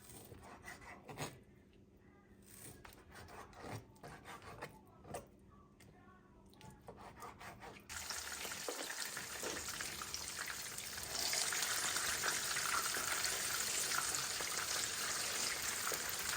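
Soft stirring and handling sounds, then food sizzling in hot oil. The sizzle starts suddenly about halfway through and gets louder a few seconds later.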